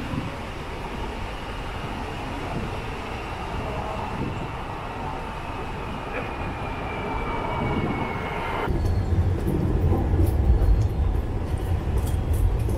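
Steady rumbling vehicle noise, with a squeal sliding down in pitch about six seconds in. About nine seconds in it switches abruptly to a louder, deeper rumble.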